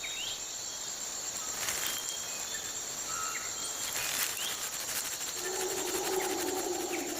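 Tropical rainforest ambience: a steady high-pitched insect drone, with short bird chirps scattered through it. A lower-pitched animal call comes in near the end and lasts about two seconds.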